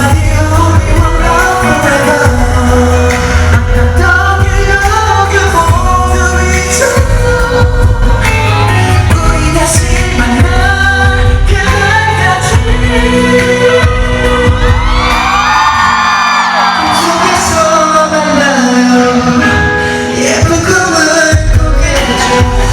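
Korean pop ballad with singing over a steady bass beat. Near the middle, the voice sweeps up and down in a wordless run. The bass drops out for a few seconds, then comes back near the end.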